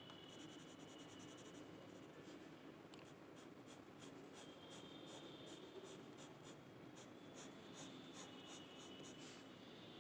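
Faint scratching of a pen tip on paper as small dots and short strokes are drawn: a quick run of scratches in the first second or so, then spaced ones, a few a second, through the rest.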